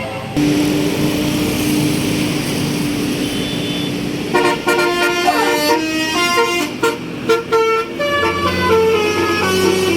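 A tour bus's Basuri 'telolet' musical horn: first one long held tone, then from about four seconds in a fast tune of short stepped notes, with passing-traffic noise underneath.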